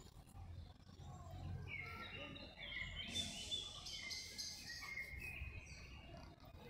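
Birds chirping and singing: many short, varied calls and trills, busiest about three seconds in, over a steady low background hum.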